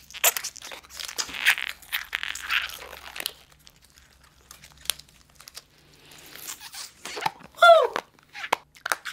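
Tissue paper crinkling and tearing as it is worked between the fingers at the mouth for the first three seconds or so, then scattered small clicks. Near the end comes a short squeaky tone falling in pitch.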